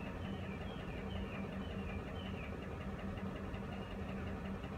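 Ford F-150 pickup's engine idling steadily, heard from inside the cab as a low hum. Faint short high chirps come and go over the first half.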